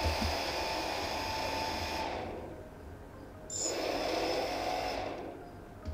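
Four small brushless drone motors, without propellers, spinning at low throttle with a steady whine. They wind down about two seconds in, spin up again about a second later and wind down once more near the end. They run on throttle just after ESC calibration, the sign that all four ESCs are calibrated.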